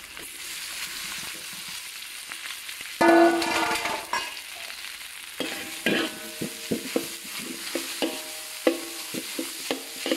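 Rice frying in a hot oiled wok, sizzling steadily as it is stirred with a metal spatula. About three seconds in comes a loud ringing metal scrape, and from halfway on the spatula clacks and scrapes against the wok again and again.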